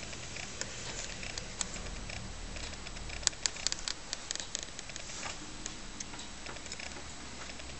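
Ticking of a DUFA (Etzold & Popitz) longcase clock's pendulum movement, fully restored and serviced. A cluster of sharper, louder clicks comes about three to four and a half seconds in.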